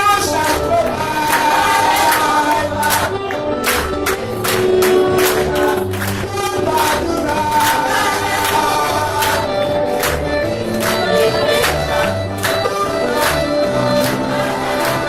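A choir or congregation singing a gospel hymn with instrumental accompaniment: held sung notes over a bass line, with percussion keeping a steady beat.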